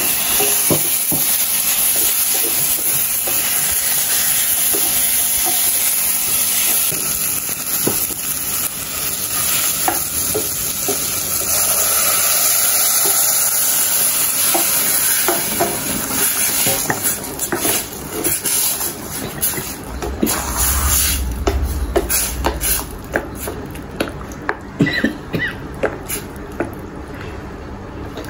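Chopped tomatoes sizzling in hot oil and spices in a stainless steel saucepan while a spatula stirs. About fifteen seconds in, the sizzle fades as cooked lentils are poured in. After that, the spatula scraping and knocking against the pan takes over.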